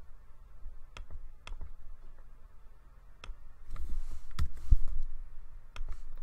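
Scattered clicks of a computer mouse and keyboard, irregularly spaced, with a few low thuds about four to five seconds in.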